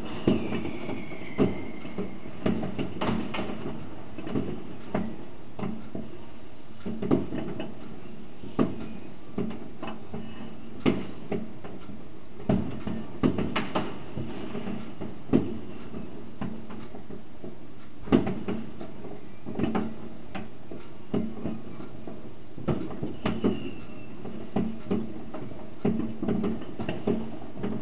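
New Year's Eve fireworks going off in the distance: a steady, irregular crackle of bangs and firecracker reports from many directions over a low rumble. A whistle glides down in pitch about a second in, and another short whistle comes near the end.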